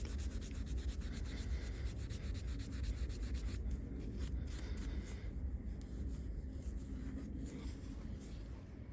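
Scotch-Brite abrasive pad scrubbing metal brake parts by hand, in quick back-and-forth strokes for the first few seconds, then slower and lighter.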